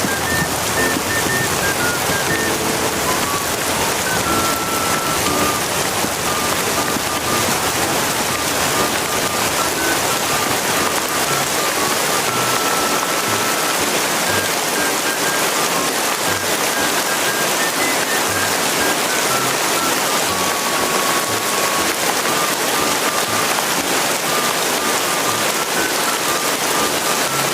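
Steady heavy rain, a dense even hiss, with a quiet melody of single notes playing underneath.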